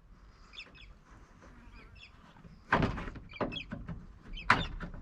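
Door-liner retaining clips being pried out of a car door: two sharp pops with a little clatter, the first just past halfway and the second near the end. Faint birdsong in the background.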